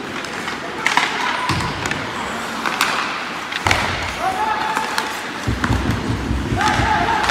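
Ice hockey play: skates scraping across the ice, sharp clacks of sticks and puck, and short shouted calls from players.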